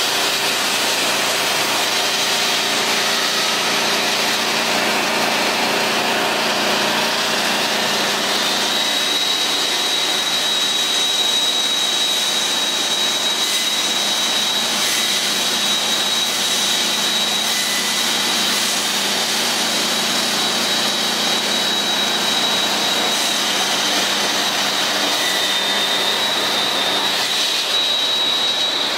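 Concrete saw cutting a concrete floor slab: a loud, steady engine-and-blade noise, with a high whine that sets in about eight seconds in and holds steady.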